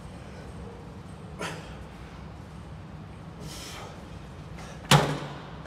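Two sharp, forceful exhales during a heavy dumbbell set, then, near the end, a loud sudden knock with a short ringing tail as a heavy dumbbell is set down hard.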